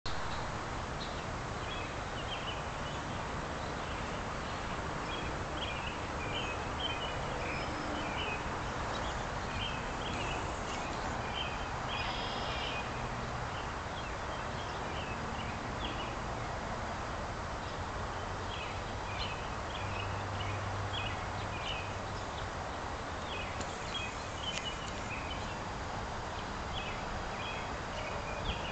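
Mallard ducklings peeping: quick runs of short, high calls, repeated on and off, over a steady background hiss.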